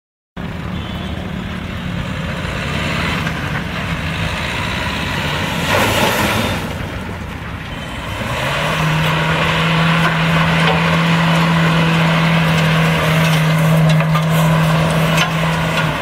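Renault Duster's 1.5-litre four-cylinder diesel engine running as the SUV is driven. About eight seconds in the engine note rises a little and then holds steady and louder. There is a brief rush of noise about six seconds in.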